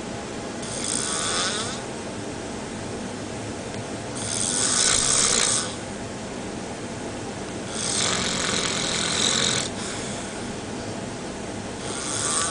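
A sleeping person snoring, four long rasping breaths about three and a half seconds apart, over a steady low hum.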